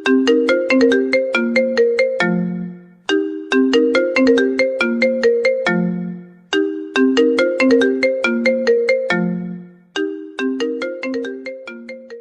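Mobile phone ringtone melody: a short phrase of quick struck notes ending on a low held note, repeated about four times.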